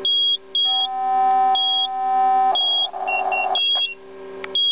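Nurse call unit's alarm beeping, a short high beep about once a second. Over it, a POCSAG page plays from a scanner receiver: a steady buzzing tone for about two seconds, then about a second of warbling data. Quick pager beeps come in about three seconds in.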